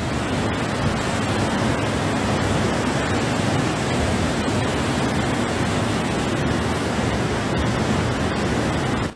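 Muddy water rushing out of a dam gate opened after years of storage and pouring down a rock face in a steady, heavy torrent, the first flush carrying built-up mud. It cuts off suddenly at the end.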